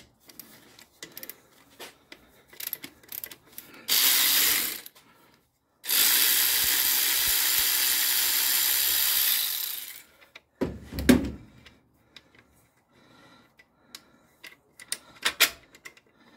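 Cordless electric ratchet running in two steady spells, a short one about four seconds in and one of about four seconds after it, turning a 12 mm alternator bolt loose. A sharp knock follows about a second later, then a few light clicks.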